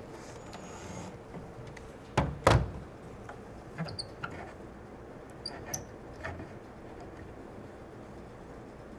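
A cordless drill set down on a wooden slatted table top, two sharp knocks about two seconds in, followed by a few light clicks and taps as a bar clamp is handled.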